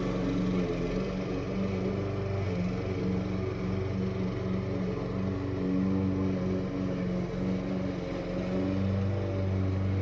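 Small gasoline lawn-equipment engine running steadily, its pitch wavering slightly.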